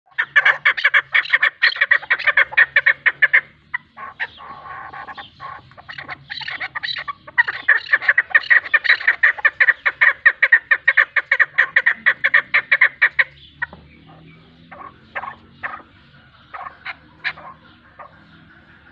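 Chukar partridges calling: long, rapid runs of loud clucking notes, several a second, in two bouts separated by a brief break. Near the end the calls thin out to scattered single notes.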